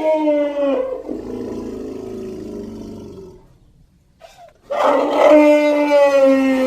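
Cartoon elephant's vocal sound effects: a pitched call about a second long that trails off into a lower rumble, then after a short gap a second, longer call held at a steady pitch.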